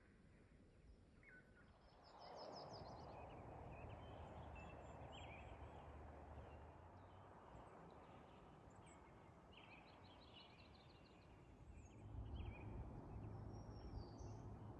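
Quiet early-morning ambience: faint scattered bird chirps and short trills over a soft, steady rushing background, with low rumbles that come and go.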